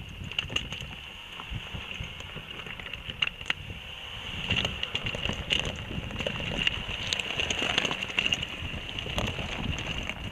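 Jeep Grand Cherokee driving slowly over loose rocks: stones crunching and knocking under the tyres in irregular clicks over a low rumble, louder about halfway through as the vehicle comes close. A steady high whine sits underneath.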